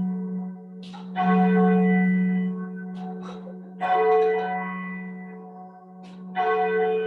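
A single church tower bell tolling slowly: three strikes about two and a half seconds apart, each ringing on with a long low hum.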